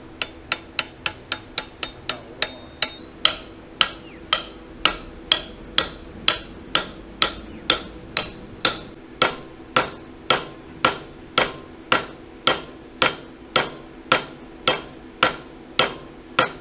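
Hammer striking steel on a StuG III G tank's final drive assembly, tapping a part home with a long even run of blows. The blows are quick and light for the first few seconds, about four a second, then heavier and slower, about two a second, each with a short metallic ring.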